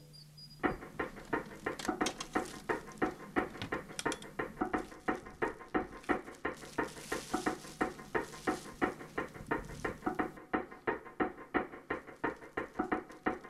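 Rapid, evenly spaced ticking, about three to four ticks a second, starting just under a second in and running on steadily.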